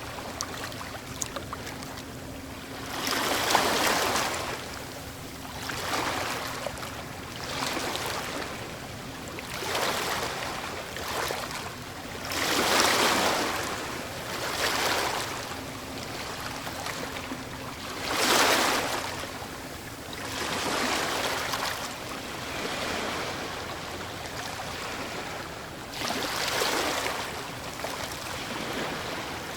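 Sea waves breaking on a shore: a steady wash of surf that swells into a crashing surge every couple of seconds, the biggest breakers about 4, 13 and 18 seconds in.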